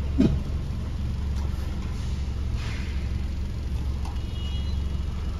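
A car engine idling steadily, heard from inside the cabin as a low hum while the car waits at a parking exit barrier. A brief voice sound comes right at the start.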